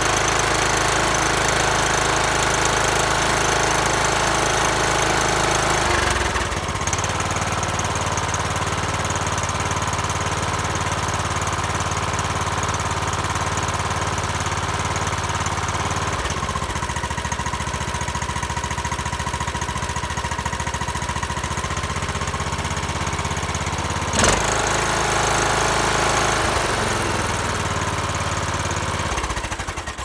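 Troy-Bilt riding mower's small engine running steadily, its speed shifting a few times as the throttle is worked. A single sharp knock cuts through about three-quarters of the way in, and the engine winds down right at the end.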